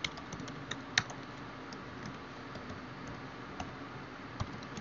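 Computer keyboard typing: scattered, irregular key clicks, with one sharper click about a second in.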